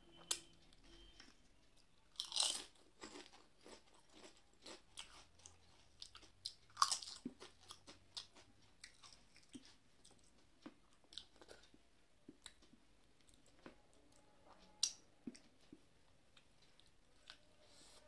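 A person chewing food with crunching bites, the loudest crunches about two and a half and seven seconds in, amid many small wet clicks of chewing.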